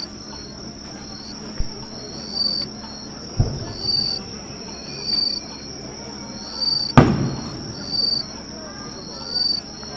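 Insects chirping steadily, one high call pulsing about every second and a half. A firework bursts with a sharp bang about seven seconds in, the loudest sound, echoing away, after a duller low thud about halfway through.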